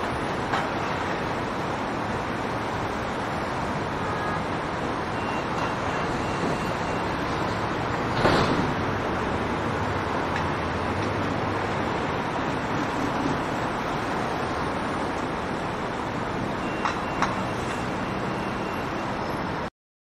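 Steady road-traffic and construction-site ambience with heavy vehicles running. A brief louder passing noise comes about eight seconds in, and a couple of sharp knocks near the end. It cuts off suddenly.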